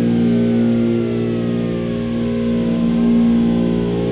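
Brushless motors and propellers of an iFlight Chimera 4 FPV quadcopter whining in flight, picked up by its onboard camera: a steady hum with higher tones that slowly slide down and then rise again near the end.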